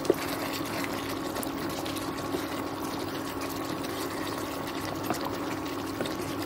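Thick tomato-masala gravy with chicken pieces sizzling and bubbling in a nonstick kadai as a wooden spoon stirs it. The spoon knocks sharply against the pan just after the start and taps it lightly a couple of times near the end.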